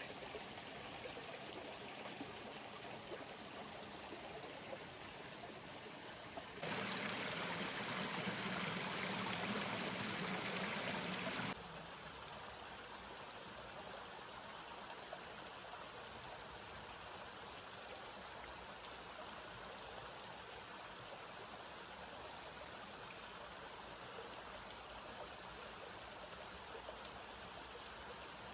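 Creek water flowing, a steady rushing noise; about seven seconds in it turns abruptly louder for some five seconds, then drops back just as suddenly to the steadier, softer flow.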